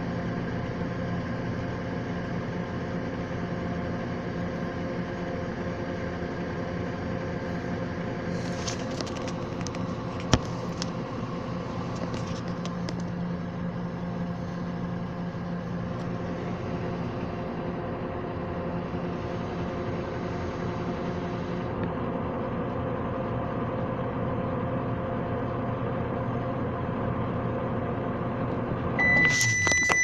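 Microwave oven running with a steady electrical hum while heating a mug of water, with a single sharp click about ten seconds in. Near the end a high steady beep sounds as the cycle finishes.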